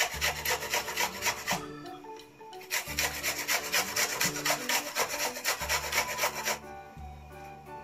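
An onion being grated on a hand grater: quick rasping strokes, about four a second, with a short pause about two seconds in, stopping shortly before the end.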